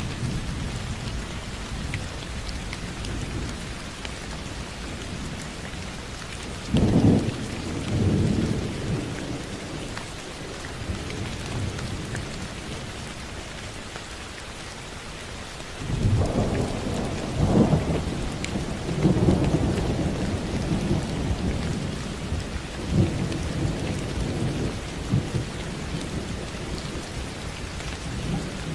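Steady rain falling, with thunder rumbling in low rolls, once about seven seconds in and again in a longer stretch from about sixteen seconds in.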